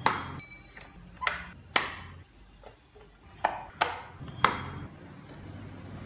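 Doors and hood of a carved wooden model car being worked by hand: about six sharp wooden clacks spread over four and a half seconds, some with a brief ring.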